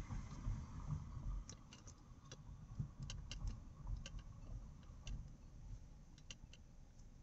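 Low road rumble inside a moving car, with scattered, irregular light clicks and ticks.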